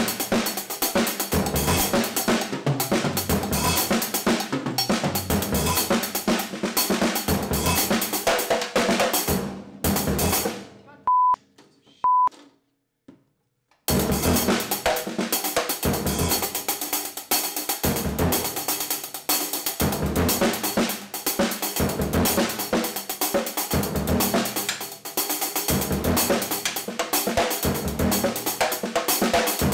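Ludwig drum kit played in a busy groove. About ten seconds in the playing stops and two short, high censor bleeps sound. After a few seconds of quiet the drumming starts again.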